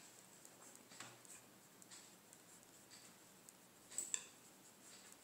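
Faint scratching and ticking of a ballpoint pen writing on ruled notebook paper, with two sharper light ticks about four seconds in.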